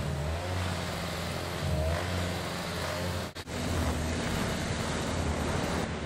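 Car engine running with road noise while being driven, a steady low hum. The sound briefly drops out a little past halfway.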